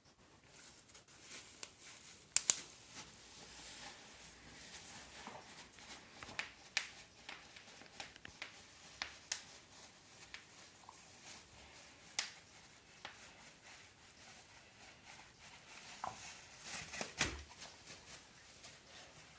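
A dog biting and chewing a sheet of bubble wrap: the plastic crinkles and rustles, with scattered sharp pops as single bubbles burst, the loudest two in quick succession a couple of seconds in.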